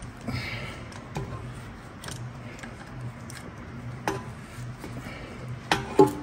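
Water pump pliers and locking pliers clicking against a rear brake caliper piston as it is twisted back into the caliper bore, scattered metallic ticks over a steady low hum, with a louder metal clink near the end.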